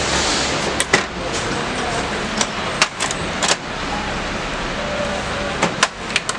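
Sharp plastic clicks and knocks as the side access door of a Canon imageRunner 1435 copier is unlatched and swung open, about eight clicks in all, over a steady background rush.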